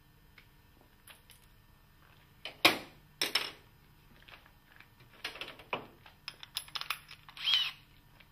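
Workshop handling noises: a pencil, folding ruler and PVC window sash being put down and moved on a workbench, giving irregular light clicks and knocks. The loudest is a sharp knock about two and a half seconds in, with a brief scrape and squeak near the end.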